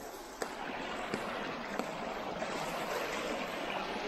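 Shallow river rushing and splashing over rocks: a steady rush of water, with a few faint clicks in the first two seconds.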